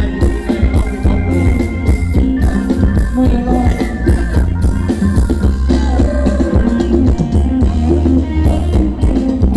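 Loud amplified Thai luk thung dance music from a live band, with a drum-kit beat under a heavy bass line.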